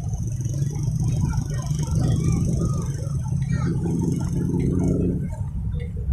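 A motorcycle engine running steadily, its note standing out more clearly about four seconds in, under the scattered chatter and calls of a beach crowd.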